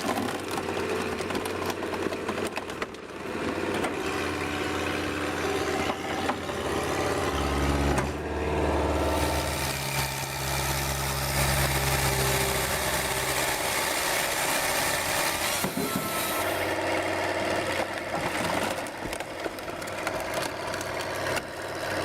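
Four-cylinder Kubota diesel engine running steadily on a homemade firewood processor, with a louder stretch of machine noise in the middle.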